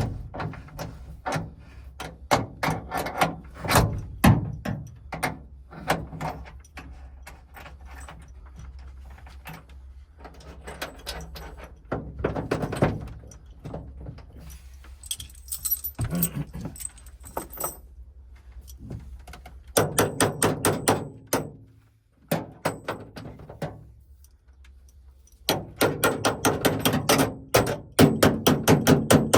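Metal clinking, rattling and knocking of tools and lock hardware on a van's side door, with runs of rapid tapping about two-thirds of the way through and again near the end.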